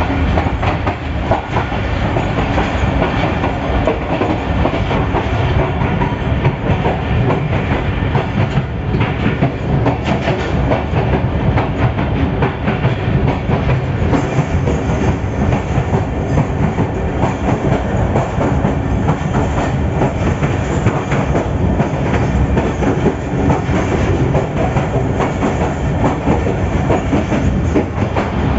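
PHA-20 diesel-electric locomotive under way, heard from inside the cab: a loud, steady running noise of engine and wheels, with the clickety-clack of wheels over the rail joints.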